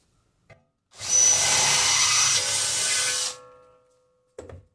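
Cordless drill with a twist bit drilling a hole through thin steel sheet for a little over two seconds, then the motor winds down after the trigger is released. A brief knock near the end.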